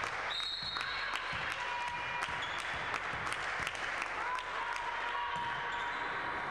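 Steady hall din during a volleyball match: crowd noise and clapping with many sharp knocks, and a brief high tone about half a second in.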